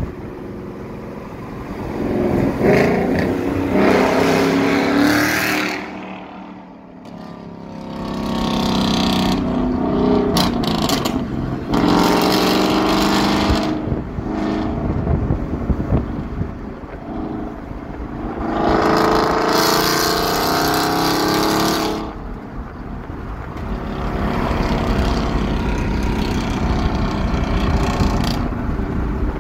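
Third-generation Coyote 5.0 V8 in an S197 Mustang, running on E85, accelerating hard in several pulls, heard from a car alongside and behind it over road noise. Its sound swells and falls with each pull, with a clear lull between the first two.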